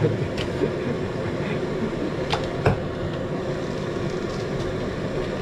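Backpacking gas canister stove burner running with a steady roar, lit with a lighter because its piezo igniter would not spark. Two light clicks about two and a half seconds in.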